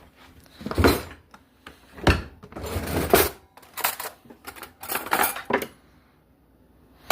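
Metal cutlery clinking and clattering in a series of rattles and knocks as a fork is searched out, going quiet about a second before the end.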